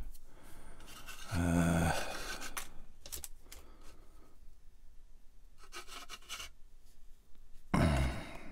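Hands rubbing and handling a plastic scale-model assembly on a cutting mat, with faint scraping. A short low hum comes about a second and a half in and again near the end.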